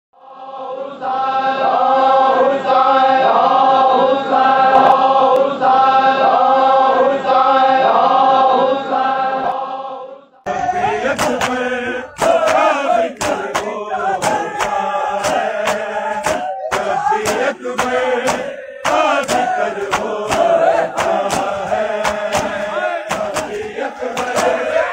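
For about ten seconds, a chanted vocal intro with a short melody repeating over and over; it cuts off abruptly. Then a crowd of men chant a noha together over a steady beat of sharp hand slaps on bare chests (matam).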